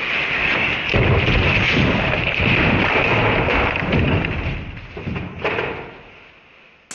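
Boxed HP 2511x LCD monitor and its foam packing falling and hitting the floor, played back slowed to a third of the speed, so the crash comes out as a long, low rumble that dies away over the last couple of seconds.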